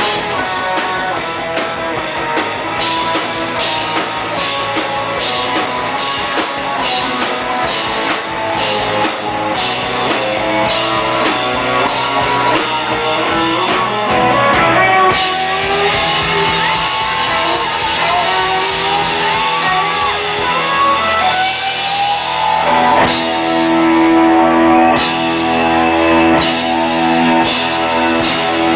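Live rock band playing, guitars to the fore. About halfway through the music changes, and near the end it moves to held chords.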